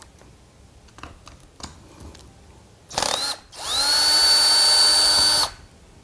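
Cordless drill/driver running at an angle grinder: a short burst about three seconds in, then a run of about two seconds that spins up to a steady high whine and stops suddenly. It is backing out a bolt from the grinder's head.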